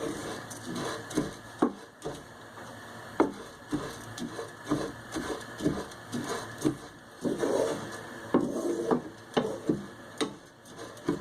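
Raw rice being stirred in a hot frying pan as it toasts in oil: irregular scrapes and taps of the stirring utensil against the pan and the grains, a few each second.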